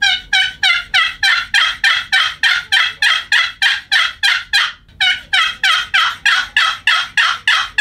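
A brand-new, unchalked wooden turkey box call (The Grind's Wet Hen) being stroked in a long run of hen-turkey notes with a good rasp, about four notes a second, with a short break about five seconds in.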